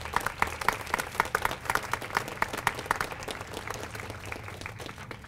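A small group applauding with hand claps, dense at first and thinning out over the last couple of seconds.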